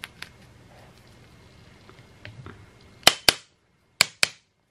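Metal spoon tapping a metal bath bomb mould to knock off the excess mix: two sharp clicks about three seconds in, then two more a second later. Before them, faint handling of the crumbly powder as the mould is pressed.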